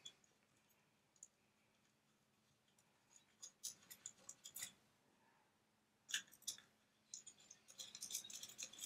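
Faint, scattered clicks and taps of small metal hardware as studs are fitted by hand onto a Simpson 260 multimeter's circuit board. The clicks come in small clusters after a quiet first three seconds.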